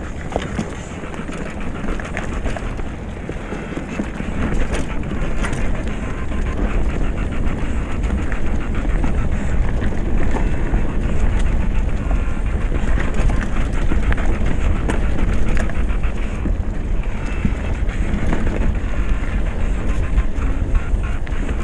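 Retro Norco Bush Pilot mountain bike rolling along a rough trail: tyres running over dirt and stones with steady rattling and clicking from the bike, under heavy wind buffeting on the microphone. It grows louder about six seconds in and stays loud.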